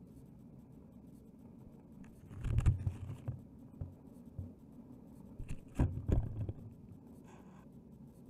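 Muffled knocking and scraping picked up inside a dashcam's sealed plastic food-container housing underwater as the box is moved and bumps about. There are two bursts of thumps, about two and a half seconds in and again about six seconds in, over a steady low rumble.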